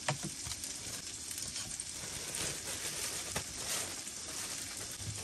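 Burger patties frying in olive oil in a tall cast-iron chicken fryer, a steady sizzle, with a few short taps and rustles from a plastic bag of buns and paper plates being handled.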